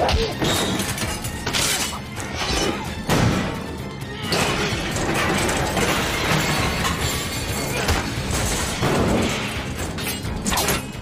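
Action-film fight soundtrack: dramatic score under a run of crashes, smashing and heavy hits, with sharp impacts about 1.5 and 3 seconds in and again near the end, and a dense noisy stretch between them.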